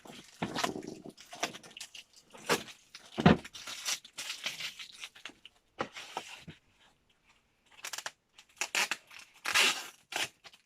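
Packaging being torn open and handled: irregular tearing and rustling with scattered sharp knocks, broken by a brief quiet stretch about two-thirds of the way through.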